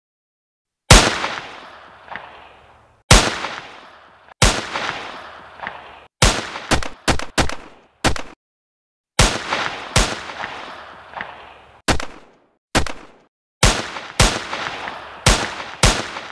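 A string of about seventeen gunshots at irregular intervals, some single and some in quick runs of two or three, each a sharp crack with an echoing tail.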